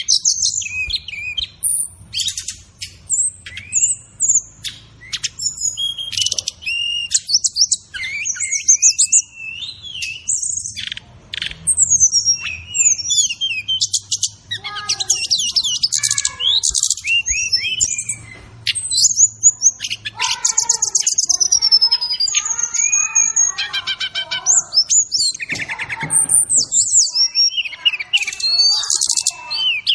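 Brown-chested jungle flycatcher (SRDC) singing continuously, a varied string of high whistles, slurred glides, chirps and rapid trills mixed with filler phrases of other birds' songs. A faint low hum lies beneath for the first two-thirds.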